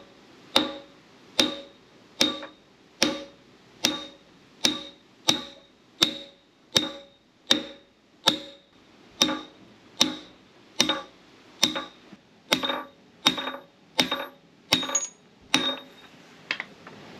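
Steady hammer blows on the rusted shaft of a 19th-century radial drilling machine, about twenty strikes a little faster than one a second, each with a short metallic ring. They are driving out the seized key that holds the shaft's pinion.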